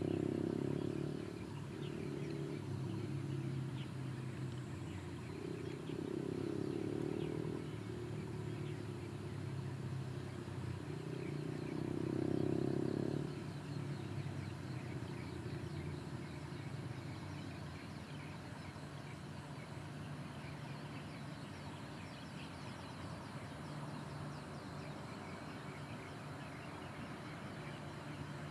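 Wenhu line rubber-tyred metro train running on the elevated track: a low mechanical hum that surges louder several times, then fades away a little past halfway.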